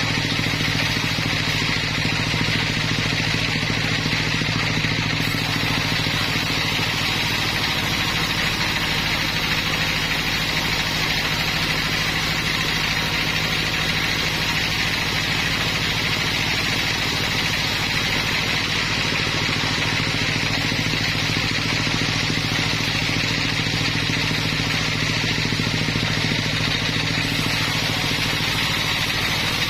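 Sawmill machinery running steadily: an even engine-like hum with a constant higher hiss, with no change in pitch or level.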